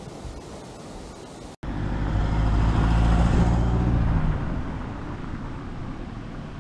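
Wind rushing on the microphone, then, after a cut, a motor vehicle passes close by: its engine drone swells over about a second and a half and fades away.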